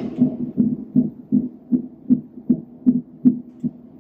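Unborn baby's heartbeat picked up by the Doppler ultrasound transducer of a Huntleigh Sonicaid Team3 fetal monitor and played through its speaker during a cardiotocography test: a fast, even pulse of about two and a half beats a second, matching the 156–157 beats per minute on the display.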